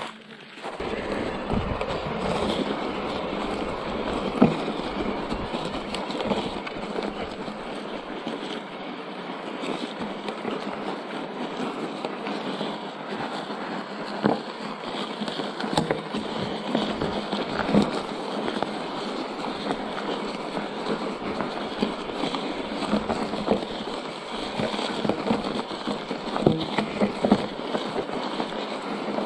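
Electric mountain bike rolling over a rough gravel and lichen-covered railway track bed: a steady crunch and rumble of the tyres, with frequent sharp knocks and rattles from the bike as it goes over bumps. The sound starts about a second in.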